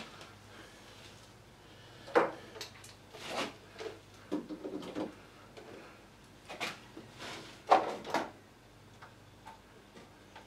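Irregular knocks, clunks and rattles of objects being handled and set down by hand. The sharpest knocks come about two seconds in and again near eight seconds, with a short rattling spell in between.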